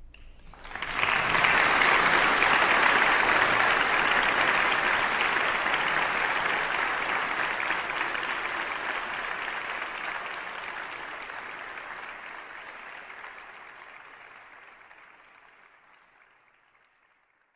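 Concert audience applauding: the clapping starts suddenly about a second in and fades out gradually to nothing near the end.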